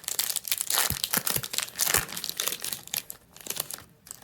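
Foil booster pack wrapper crinkling and crackling as it is handled and torn open, a dense run of crisp rustles that eases off near the end.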